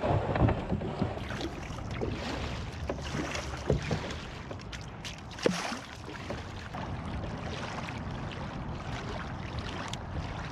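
Kayak being paddled: paddle strokes splashing over a steady wash of water noise, with a few sharp knocks of gear against the hull about half a second, four and five and a half seconds in.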